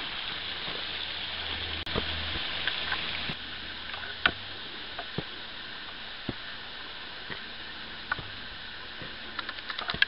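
Steady hiss of running creek water, with scattered irregular clicks and scuffs of footsteps on a dirt and stone bush track.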